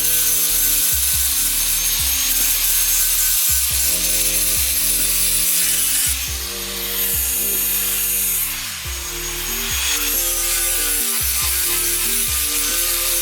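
Sanding on the sheet metal of a car's engine bay: a steady, harsh scratching hiss that eases off for a few seconds after the middle. Background music with a regular beat plays under it.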